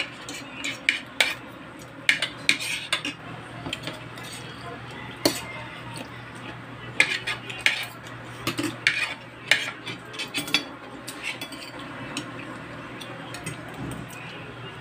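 Spoons and forks clinking and scraping on plates while eating, in irregular sharp clicks, thickest in the first ten seconds or so and sparser near the end.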